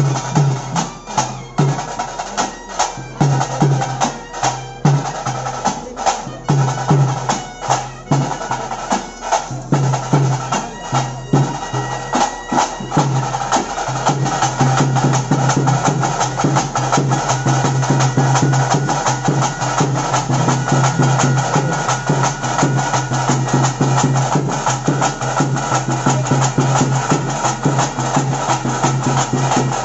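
Traditional bhuta kola ritual music played on drums with a droning reed pipe: separate drum strokes for roughly the first dozen seconds, then continuous, denser drumming under a steady drone.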